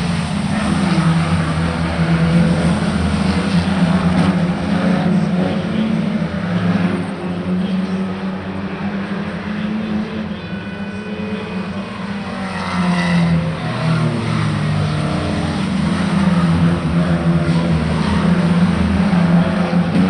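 A motor vehicle's engine running continuously, its pitch wavering up and down as it revs.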